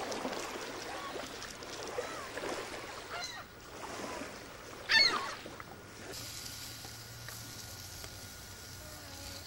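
Gulls calling overhead in a few short, squawking calls, the loudest about five seconds in. After that comes a quieter steady background with a faint thin hum.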